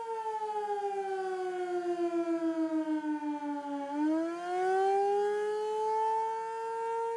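Outdoor civil defense warning siren sounding a test: a steady wailing tone that slowly drops in pitch for about four seconds, then rises back to its earlier pitch and holds, wavering slightly in loudness.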